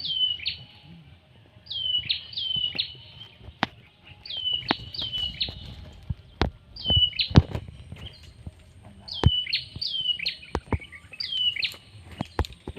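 A bird calling over and over, in groups of two or three short high notes that each drop sharply in pitch and then level off, with scattered sharp clicks between them.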